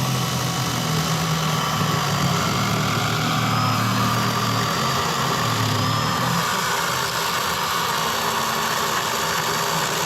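A motor or engine running steadily with a low hum, its pitch shifting a little partway through.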